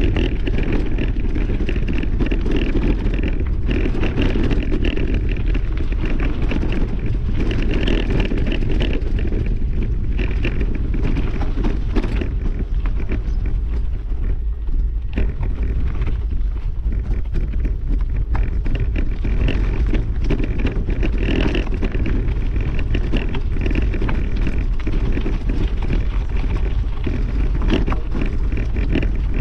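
Riding noise from a camera on a moving vehicle on a rough dirt track: wind buffeting the microphone, with a steady rumble of tyres over gravel and frequent small knocks and rattles.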